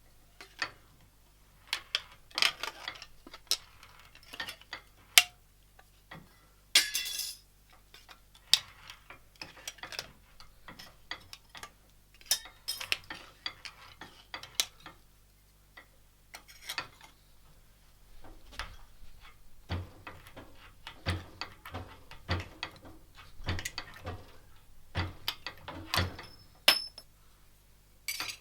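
Irregular metallic clinks, clicks and knocks of steel tool parts being handled and fitted together, some in quick runs and others spaced out.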